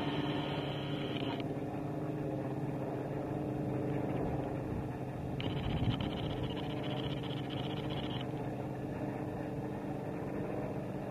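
Steady drone of a piston engine, even and unchanging in pitch, with a higher hiss that cuts in twice, near the start and again in the middle.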